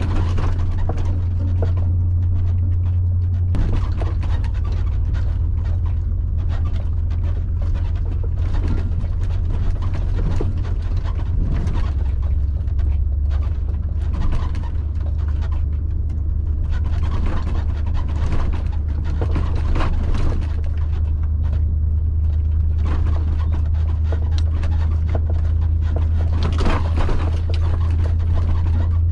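Inside the cab of a disabled truck under tow: a steady low drone with road noise and scattered knocks and rattles from the cab. The drone shifts pitch about three seconds in and again near the middle.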